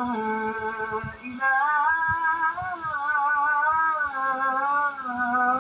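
A muezzin chanting the closing phrase of the adhan, 'lā ilāha illā-llāh', in long, wavering drawn-out notes, with a short breath about a second in. It is heard through a television speaker.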